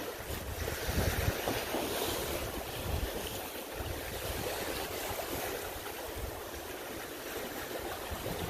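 Wind buffeting the microphone in uneven low gusts over a steady wash of open water.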